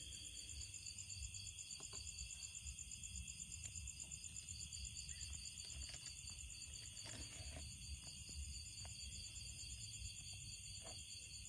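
Night insects, crickets, trilling steadily in a high, rapid, even pulse, over a low rumble and a few faint clicks.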